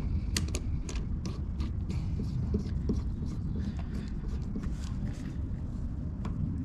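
A quick-connect fitting being screwed by hand onto an electric pressure washer's port: irregular small clicks and creaks of the threads and fingers on the plastic housing, over a low steady rumble.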